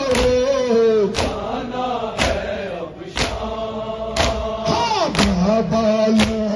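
Men chanting a nowha lament in unison, their voices drawn out and wavering, over sharp rhythmic strikes about once a second from the crowd's matam (chest-beating).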